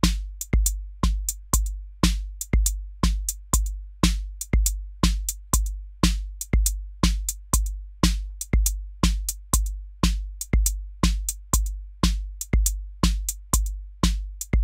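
A programmed drum-machine loop from the Native Instruments Maschine MK3 step sequencer. A steady kick drum hits about twice a second, with sharp hi-hat ticks in between and snare hits in the pattern.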